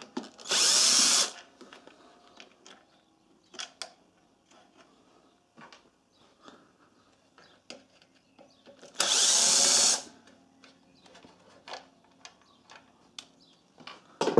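Cordless drill-driver spinning twice, about a second each time, just after the start and again about nine seconds in, backing out the screws of a generator's alternator end cover. Light clicks and taps of handling the screws and cover come in between.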